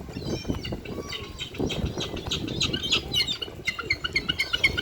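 A flock of gulls and ducks crowding in for food: wings flapping, with many short, high calls that quicken into a fast run near the end.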